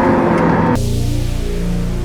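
Ferrari SF90 XX twin-turbo V8 running through a straight-piped Ryft titanium exhaust, cut off abruptly under a second in. Background music with low, sustained bass notes follows.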